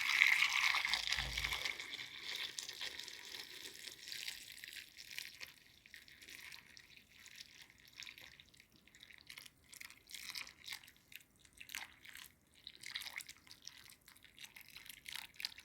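Liquid poured over lemons in a container, a hissing pour that is strongest for the first couple of seconds and then fades. After it come faint scattered drips and small clicks.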